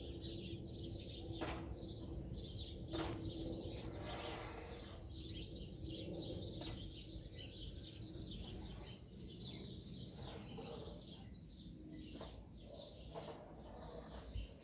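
Small songbirds chirping and twittering, many short high calls overlapping throughout, over a low steady background hum.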